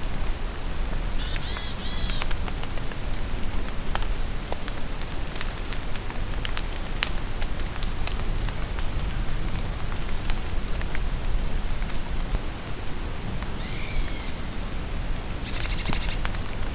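Steady rain falling in a forest, with scattered drops ticking, and birds calling over it: a short burst of high chattering notes about a second in, brief high peeps here and there, and near the end a call with falling notes followed by a fast, high trill.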